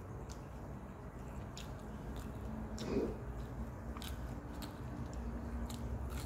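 A person chewing food, with scattered soft mouth clicks and smacks, and a brief hum from the eater about three seconds in.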